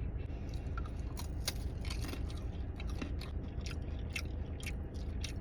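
Close-up chewing of a thin, crisp pepper and poppy seed water cracker: a run of irregular crunches and crackles, several a second.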